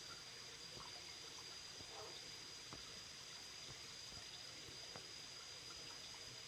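Faint trickling and flowing of a jungle stream at a waterfall pool, with a thin steady high-pitched tone over it and a few small ticks.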